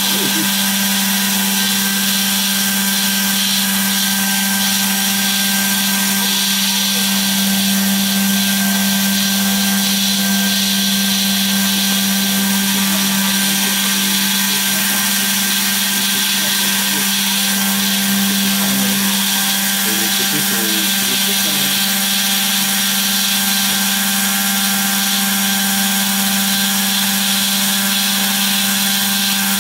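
CNC router spindle running steadily while its small end mill cuts a pocket into a foam block, a constant low drone with a high hiss above it.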